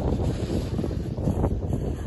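Wind buffeting the microphone, a loud, uneven low rumble that rises and falls in gusts.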